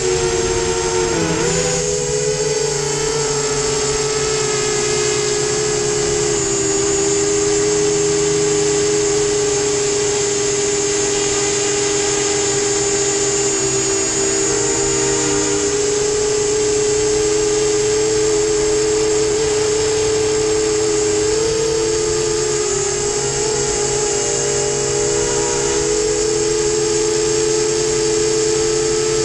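FT250 FPV quadcopter's electric motors and propellers whining steadily, heard from the camera mounted on the quad. The pitch dips briefly about a second in and wavers a little with throttle.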